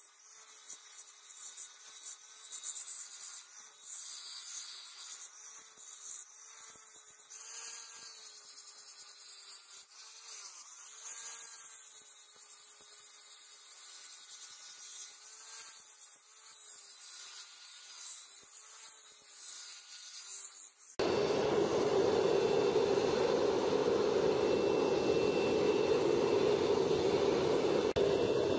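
Angle grinder with a sanding disc running against the steel blade of a bill hook, its motor whine wavering slightly as the disc is pressed and eased over the metal. About three-quarters of the way through it gives way abruptly to the louder, steady rushing of a gas burner firing a small furnace.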